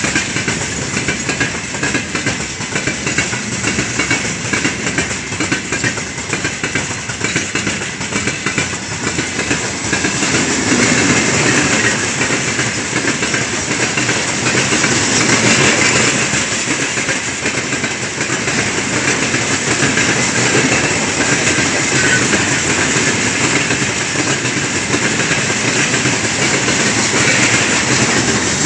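Wagons of a long freight train rolling past, the wheels clattering rapidly over the rail joints.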